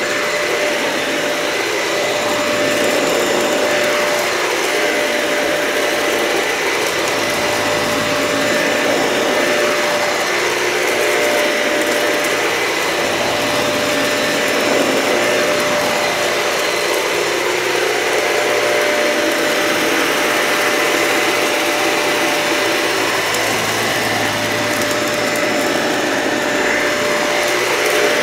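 Dyson vacuum cleaner running steadily over a matted, dirty carpet, its motor whine held at one pitch over the rush of suction.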